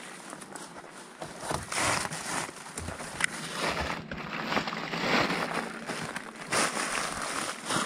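Footsteps crunching and rustling through dry fallen leaves and patches of snow, in irregular steps that start about a second and a half in.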